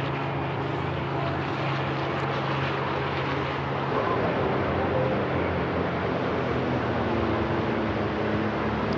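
An engine running steadily under a rushing noise, its hum stepping up in pitch about four seconds in.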